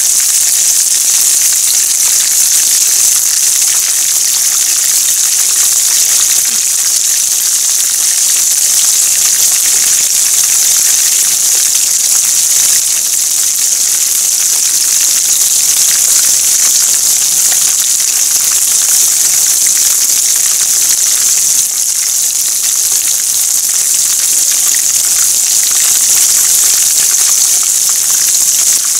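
Chicken karaage deep-frying in hot oil, sizzling steadily.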